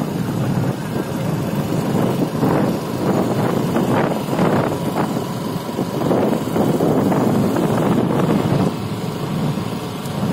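Wind rushing and buffeting over the microphone of a vehicle moving along a road, a loud rumbling noise that swells and dips, with the vehicle's running noise beneath.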